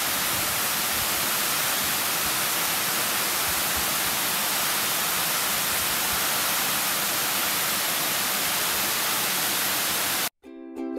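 Waterfall: a loud, steady rush of falling water, close to the microphone. It cuts off suddenly near the end, and plucked ukulele music begins.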